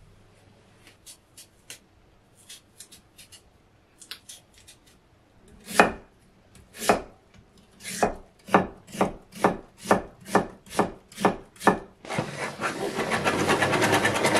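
Kitchen knife chopping on a cutting board. It starts with light taps, then settles into steady strokes about two a second, and in the last couple of seconds breaks into a fast continuous run of chopping.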